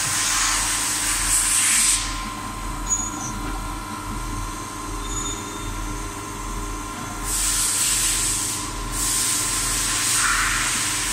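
CNC milling machine cutting a keyway in a metal shaft with an end mill under flood coolant. A steady whine from the running spindle sits under a loud hiss that drops away after about two seconds and returns about seven seconds in.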